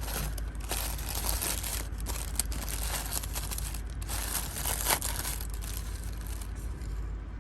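Paper wrapping being crinkled and pulled off a new pocketknife: a dense rustling with sharper crackles, stopping shortly before the end.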